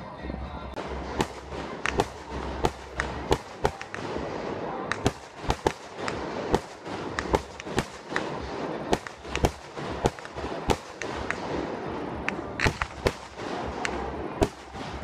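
Fireworks display: aerial shells bursting in a rapid, irregular series of sharp bangs, one to three a second, with a steady rumble between them.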